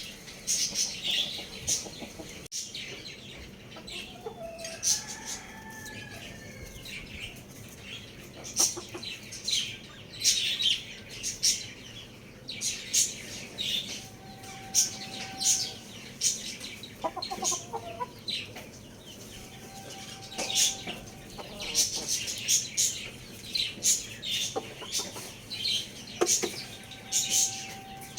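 Many birds chirping together in quick, high-pitched calls, with chicken clucking mixed in.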